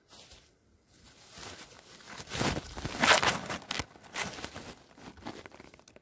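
Close rustling and crackling against the microphone, grass and handling noise as the camera is shifted, building to a peak about three seconds in and then fading.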